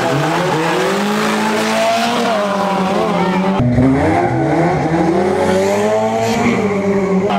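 Four-cylinder hatchback drag cars accelerating hard from the line, engines revving up, dropping at each upshift and climbing again. The engine note changes abruptly about three and a half seconds in.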